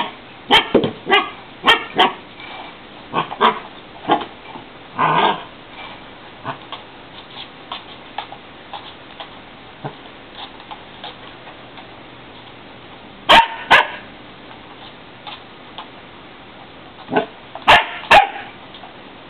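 Young husky barking and yipping in short bursts at its water bowl, with sharp knocks of the bowl on the floor: a flurry in the first few seconds, a quieter stretch, then two loud pairs of barks and knocks in the second half.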